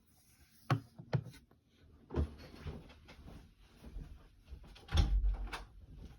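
Small hard objects being handled on a hard surface: several sharp knocks and clicks with rustling between them.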